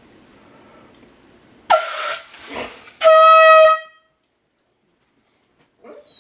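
Handheld marine air horn blasting. A sudden short blast comes about 1.7 s in and turns into a rougher, noisier stretch. A longer, steady, loud blast follows about 3 s in and cuts off sharply.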